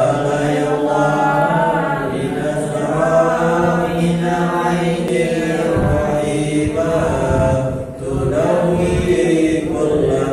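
Men's voices chanting an Islamic devotional text in Arabic into microphones, in long melodic held notes, with a brief break about eight seconds in.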